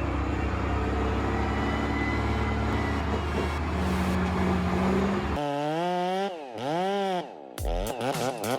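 A heavy engine running steadily, then from about five seconds in a chainsaw revving up and down several times, its pitch rising and falling in quick swells.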